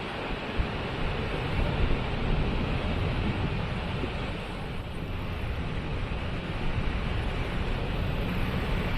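Waterfall's steady rushing noise, with a heavy low rumble.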